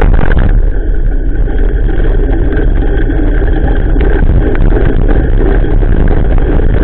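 Wind buffeting and rumble from riding a bicycle, picked up on an action camera's microphone while it moves along a wet dirt path: a loud, steady low rumble with an occasional knock as the bike jolts, one about four seconds in.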